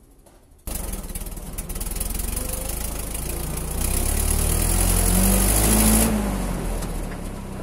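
Forklift engine running under way, coming in abruptly just under a second in. It revs up from about four seconds in, rising in pitch, then eases off after about six seconds.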